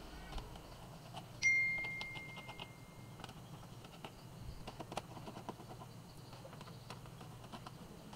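Scattered light clicks and taps, with one clear ding about a second and a half in: a single high, steady tone that fades away over a couple of seconds.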